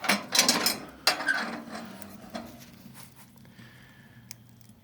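Metal clattering and clanking in the first second, ending in one sharp clank, then fading to a low steady hum.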